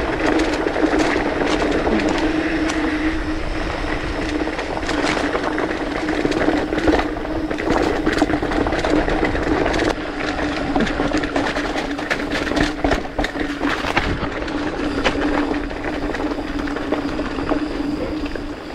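Full-suspension mountain bike (Polygon Siskiu T8) rolling fast downhill on a dirt and leaf-covered trail: knobby 29-inch Maxxis Dissector tyres running over the dirt, under a steady hum, with frequent clacks and rattles from the bike over bumps.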